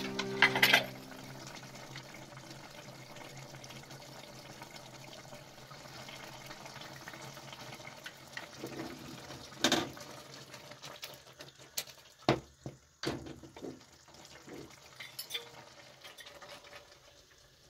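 Faint kitchen sounds: a low steady hiss with scattered clicks and knocks of utensils and dishes, a few of them sharper in the second half. Background music cuts off about a second in.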